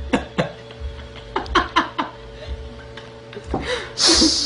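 Short bursts of laughter and chuckling, with a sharp breathy exhale about four seconds in.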